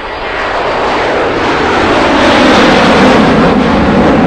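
Loud rushing noise, swelling over the first two seconds and then holding steady.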